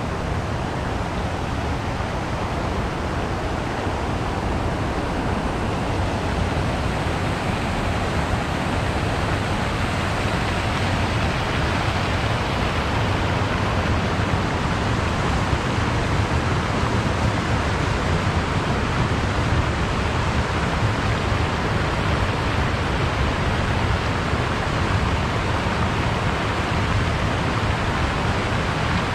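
Steady rushing splash of the World War II Memorial's fountain jets falling into the pool, a little louder after the first third.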